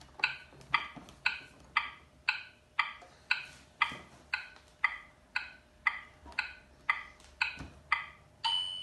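Play-Doh Magical Oven toy's electronic timer ticking evenly, about twice a second, then a short high beep near the end signalling that the bake is done.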